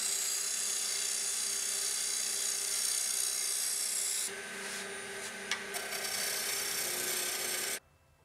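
Wood lathe spinning a wooden handle blank while a hand-held turning tool cuts it: a steady hiss of cutting over the lathe motor's hum. The cut eases about four seconds in, picks up again with a couple of clicks, and stops abruptly near the end.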